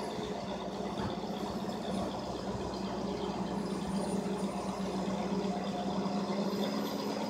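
Yellow rail-car mover's diesel engine running steadily with a low hum as the machine creeps out along the track under load, pulling a locomotive behind it.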